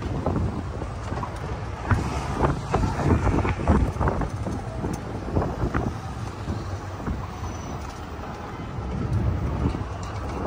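Wind buffeting the microphone: an uneven low rumble with gusts, heaviest a few seconds in.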